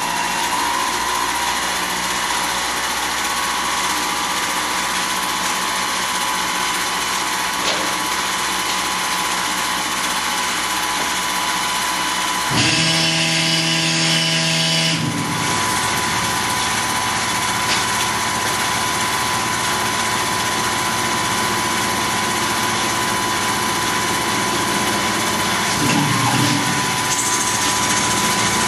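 Tormach PCNC 1100 CNC mill's spindle running a facing cycle on a brass spacer in its Duality lathe setup: a steady machine running sound with a high whine. About 13 seconds in, a different pitched hum with a hiss comes in for a couple of seconds.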